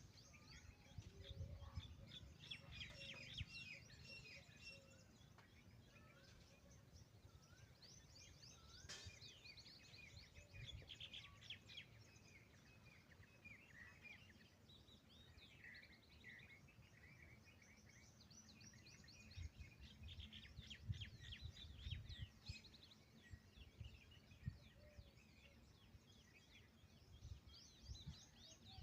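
Faint chorus of birds chirping and trilling in quick runs of high notes, with low thumps and rumble underneath.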